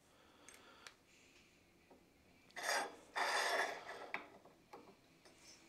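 Two short rasping rubs, about two and a half seconds in, as metal shavings are cleaned off a thread tap, with a few light clicks of the tool before and after.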